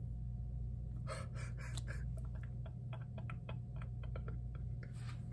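Faint rustles and small irregular clicks of a trading card being handled and tilted in the fingers, starting about a second in, over a steady low hum.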